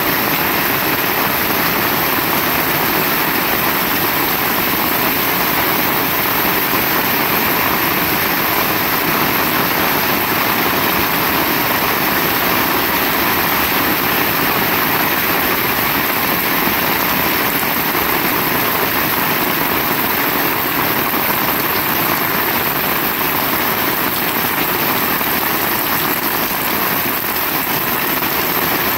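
Heavy rain pouring steadily, a dense, unbroken hiss with no let-up or thunderclap.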